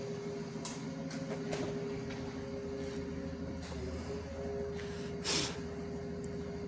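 Engine of a Magirus turntable-ladder fire truck running steadily with a droning hum while its ladder is deployed. A short burst of hiss comes a little past five seconds in.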